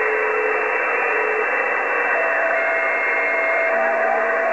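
Cobra 148 GTL CB radio receiving on channel 37 with no voice coming through: steady loud static hiss from its speaker. Faint steady whistles come and go in the hiss; a lower one stops about a second and a half in and a higher one starts about two seconds in. This is the band noise of a CB channel open to long-distance skip.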